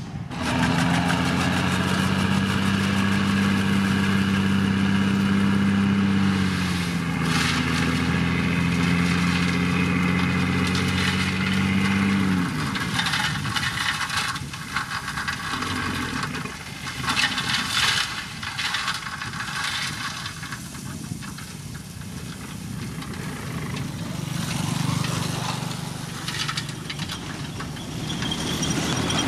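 Heavy diesel road-construction machine engine running steadily. Its pitch dips briefly about seven seconds in, and it winds down about twelve seconds in. After that a quieter engine hum remains, with scattered knocks and clanks.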